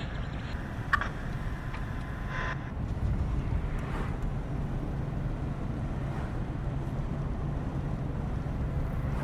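A 1987 car's engine running steadily with a low drone, and a sharp click about a second in.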